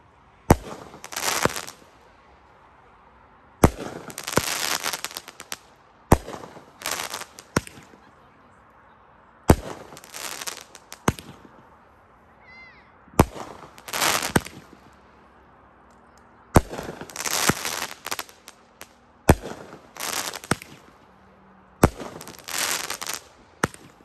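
Brothers Pyrotechnics 'Super Stock Car' 16-shot firework cake firing. About eight shots come roughly every three seconds, each a sharp thump as the shell leaves the tube, followed within a second by its burst overhead.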